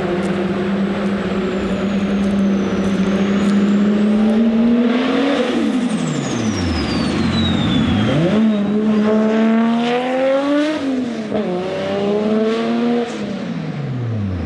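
Single-turbo RB26 straight-six of a 700 hp Nissan Skyline R32 GTR under hard acceleration through the gears. Its note climbs, drops sharply at about 5 s and again at about 11 s, then falls away near the end, with a high turbo whistle sweeping down after the first lift.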